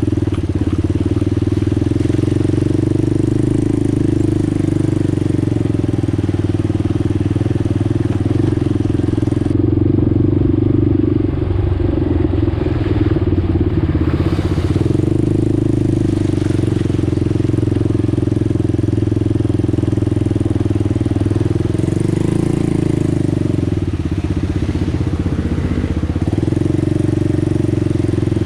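Single-cylinder ATV engine running steadily under load while riding a dirt trail, its pitch rising and falling a little with the throttle.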